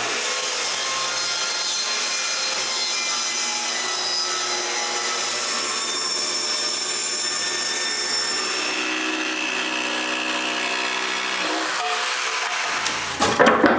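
A power saw cutting a curved shape out of plywood, its motor whine rising as it spins up and then running steadily through the cut before stopping near the end.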